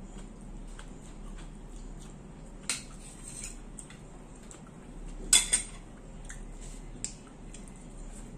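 Metal forks clinking against ceramic plates and bowls while eating: a single clink near three seconds, a loud pair of sharp clinks a little past five seconds, and a lighter one near seven seconds.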